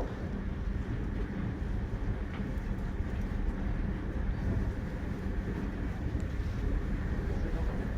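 JR Hokkaido Rapid Airport electric train running steadily between stations, heard from inside the carriage: a continuous low rumble of wheels on rail.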